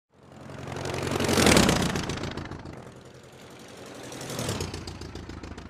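Logo-reveal sound effect: a low rumbling whoosh that swells to a peak about a second and a half in, fades away, and swells again more weakly near the end.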